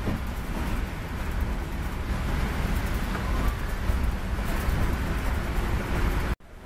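Private bus driving through heavy rain: a steady low rumble of engine and tyres on the wet road under a constant hiss of rain. It cuts out suddenly near the end.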